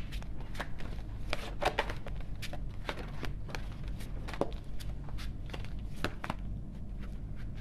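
A deck of animal spirit oracle cards being shuffled by hand: a run of irregular soft clicks and snaps of cards against one another, over a steady low hum.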